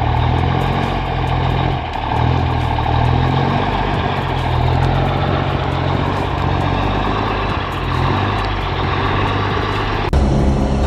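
Heavy truck engine running steadily, its pitch shifting a little. About ten seconds in, the sound switches abruptly to a deeper engine.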